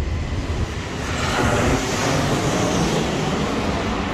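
Airplane flying low overhead on its approach to land: a steady rushing roar that swells about a second in and holds.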